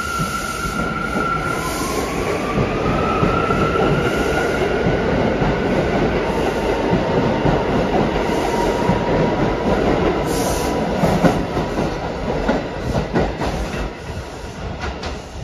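Bombardier R179 subway train running along the track, a steady rumble of wheels on rail with a high whine that glides up in pitch a couple of seconds in. A run of clacks comes over the last few seconds as the sound eases off.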